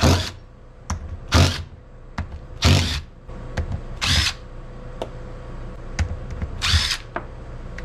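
DeWalt cordless drill with a socket spinning bolts out of an ATV rear differential cover, in about five short bursts more than a second apart.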